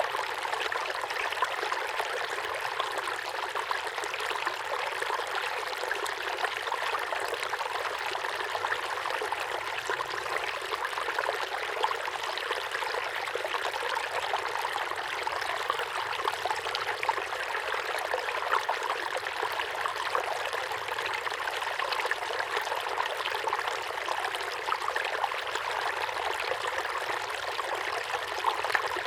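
A small waterfall pouring steadily into a pond, a continuous splashing and trickling.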